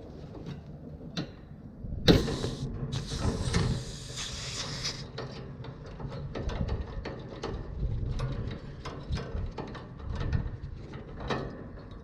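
A wrench clicking and scraping on a threaded fitting as a high-pressure switch is unscrewed from an AC condenser's refrigerant line. A loud hiss of about three seconds comes about two seconds in.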